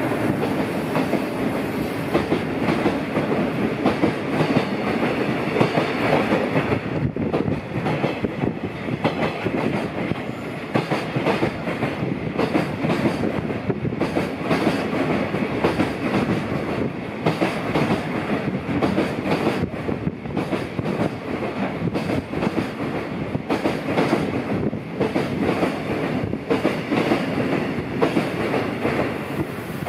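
Container freight wagons rolling past at close range: a continuous rumble of steel wheels on rail, with repeated clacking as the wheels cross rail joints.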